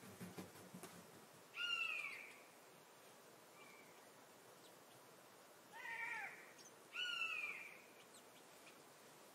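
Common buzzard calling: three short drawn-out cries, each rising then falling in pitch, one about a second and a half in and two close together near the end.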